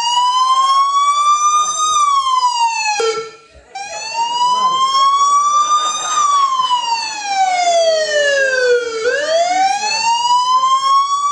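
A loud, siren-like whistling tone sliding slowly up and down in pitch. It rises for about two seconds and falls, breaks off briefly about three seconds in, then rises again. It falls slowly to its lowest about nine seconds in and sweeps back up quickly near the end.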